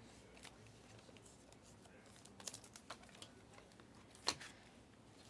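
Faint clicks and light slaps of thick foil Panini Obsidian basketball cards being slid over one another as a stack is flipped through in hand. There are a few separate sharp ticks, the loudest about four seconds in.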